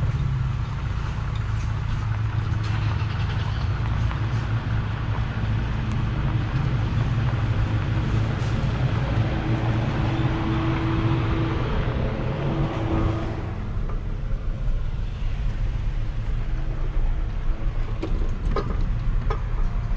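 Toyota Tacoma pickup truck driving slowly on a dirt road, its engine and tyre noise heard from inside the cab as a steady low rumble.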